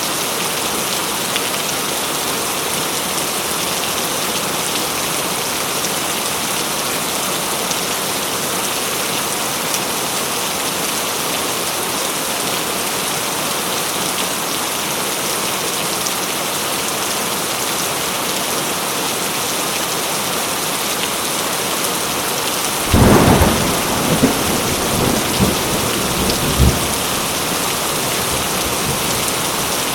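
Heavy rain falling steadily. About two-thirds of the way through, a sudden clap of thunder breaks in, followed by a few seconds of rumbling cracks.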